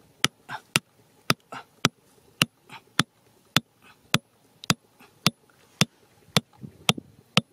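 Hammer tapping bamboo stakes into the ground around a hole, a steady run of sharp knocks about two a second.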